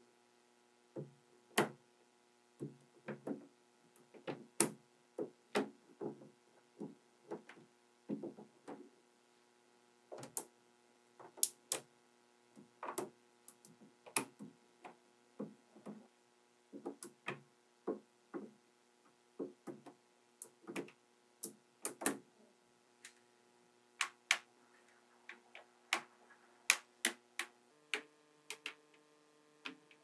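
Small magnetic balls clicking and snapping together as strips of them are pressed onto the structure: irregular sharp clicks and little rattles, one to three a second.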